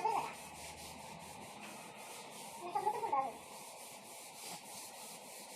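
Sandpaper rubbed quickly back and forth over wood, about five strokes a second, smoothing the putty-filled repair.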